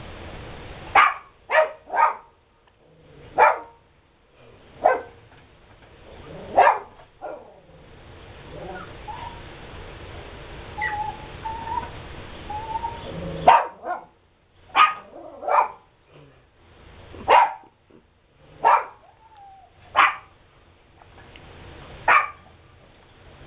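Dogs barking in single sharp barks, about fourteen of them, spaced a second or more apart, with a quieter gap of several seconds in the middle that holds faint short high-pitched calls.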